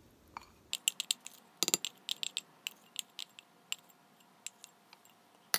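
A spoon scraping and tapping against a small ceramic bowl while scooping out mayonnaise: an irregular run of light clicks, with a sharper knock near the end.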